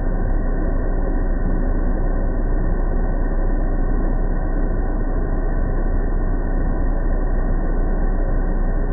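Sirena water-filter vacuum cleaner running steadily, its motor noise constant and unchanging.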